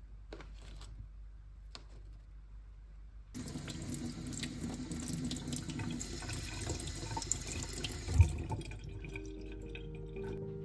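Kitchen tap water running over hands rubbing button mushrooms clean and splashing into a stainless steel sink; it starts suddenly about a third of the way in, after a few faint handling clicks. A dull thump comes near the end, and soft background music takes over as the water fades.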